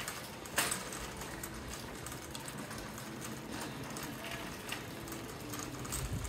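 Shopping cart rolling on a concrete store floor with light clicking, over a steady low hum, with a sharp clack about half a second in.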